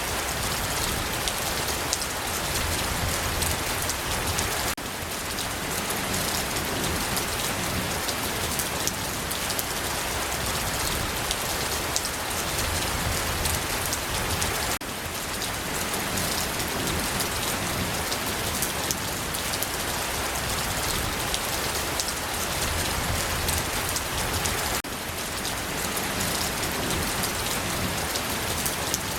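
Steady rain falling on a surface: an even hiss of many fine drops, with a slight brief dip in level about every ten seconds.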